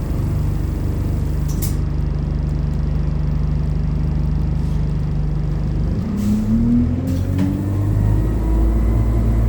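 ADL Enviro200 bus's diesel engine idling, heard on board. About six seconds in comes a short hiss, then the engine revs up with a rising pitch as the bus pulls away and settles into a louder running note.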